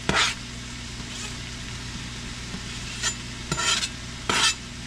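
Ground beef, diced porcini and onion frying in a skillet with a steady sizzle. A few short scrapes sound over it as corn kernels are pushed off a plastic cutting board into the pan.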